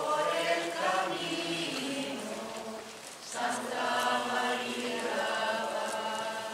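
Group of voices singing a slow religious chant together, with long held notes. One phrase ends about two seconds in, and after a short pause a second phrase starts about a second later.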